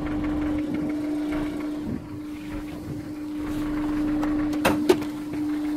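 Honda S2000's four-cylinder engine idling steadily with a constant hum, which the owner suspects has rod knock. Two sharp clicks sound close together near the end.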